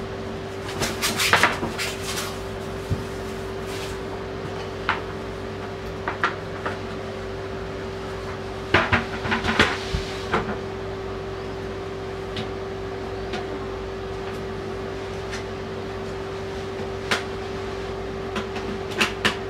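Plastic bidet toilet seat clicking and knocking as it is handled and fitted onto a ceramic toilet bowl, in several short bursts of clicks, over a steady low hum.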